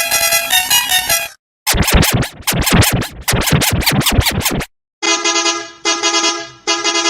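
A musical bus horn playing its 'tu tututu' tune in edited variations. First comes a short burst of the horn melody. Then there are about three seconds of a chopped, rapidly wavering processed version, and about five seconds in the horn plays the tune again at a lower pitch.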